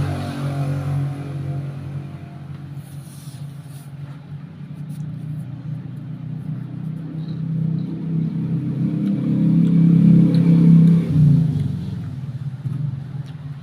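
A motor vehicle's engine running close by, growing louder to a peak about ten seconds in and then fading away.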